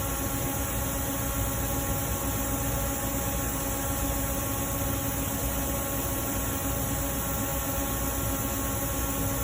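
Steady background hum and hiss of running machinery, with several fixed tones held unchanged throughout and no other event.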